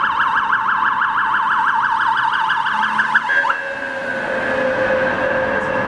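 Electronic police siren sounding a fast yelp that sweeps up and down about six times a second. About three and a half seconds in it switches to a steadier high tone, then cuts off suddenly.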